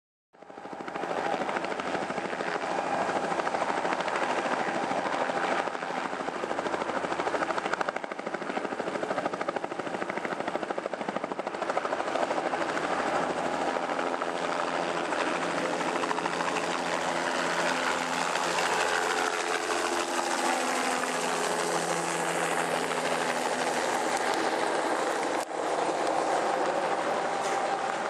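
Police helicopter taking off after a repair: a loud, steady rotor and turbine noise, with tones gliding down in pitch in the second half.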